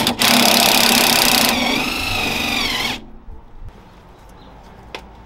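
Power impact wrench running on a suspension bolt: a loud hammering rattle, then a whine that wavers up and down in pitch for about a second and a half before it stops suddenly about three seconds in.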